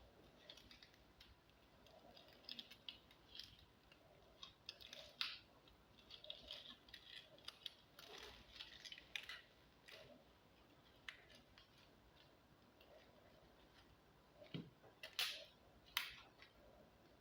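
Quiet, scattered clicks and short scrapes from ingredients and kitchen utensils being handled, with the two loudest, sharpest clicks near the end.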